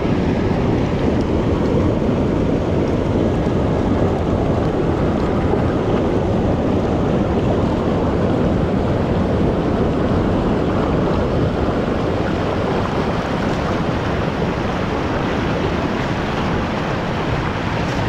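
River rapids rushing loudly and steadily, a dense churning of water.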